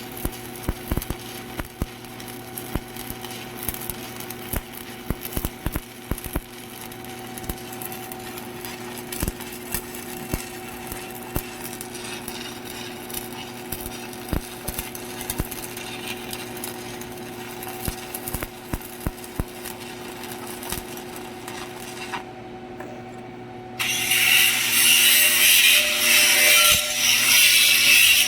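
Stick arc welding: an irregular crackle over a steady electrical hum from the welding machine. About 24 seconds in, a much louder rough scraping starts and goes in uneven strokes.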